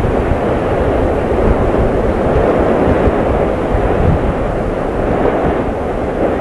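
Volcanic eruption rumbling with a loud, steady, deep roar, without breaks or distinct blasts.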